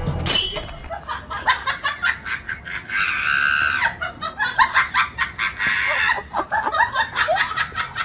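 Heavy metal chain clinking and scraping as it is dragged over stone paving, in quick, uneven jerks with each tug.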